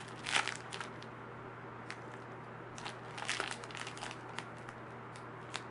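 Plastic crinkling and rustling in a few short clusters as squishy toys are handled and put away.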